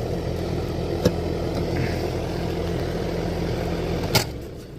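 Lennox R410A air-conditioner condenser running with a steady hum from its compressor and fan. There is a click about a second in, then a sharp clack near the end as the power is switched off, and the hum falls away.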